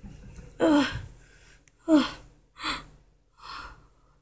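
A person's voice gasping: a falling "oh" about a second in and another soon after, then two short breathy gasps.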